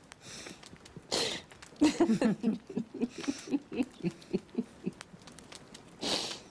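Women laughing: quick runs of short laughs broken by breathy in-breaths.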